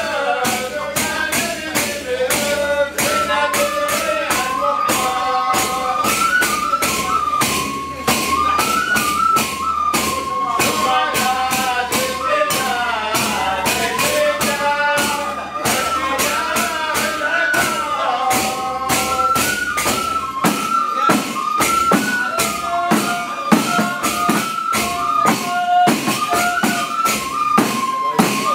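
Traditional Hadrami (Tarimi) frame-drum music: many hand-beaten frame drums keep a fast, steady rhythm under a melody that moves in held, stepped notes.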